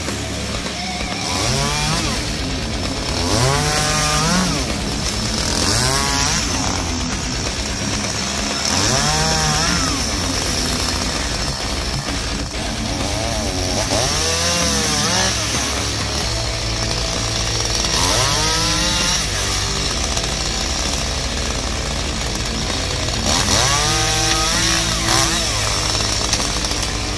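Oleo-Mac two-stroke chainsaw cutting limbs off a standing spruce, revving up and dropping back to idle every few seconds, about eight times.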